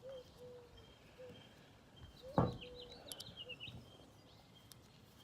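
Birds calling faintly over quiet outdoor background, with one dull thump about two and a half seconds in, followed by a few short clicks.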